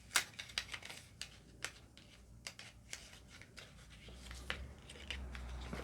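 Hands handling and opening small cosmetic product packaging: a scatter of light, irregular clicks and rustles.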